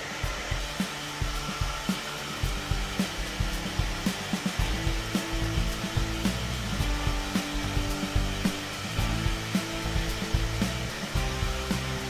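Handheld hair dryer blowing, a continuous even hiss that wavers slightly in loudness as it is moved about the head to dry the roots of curly hair.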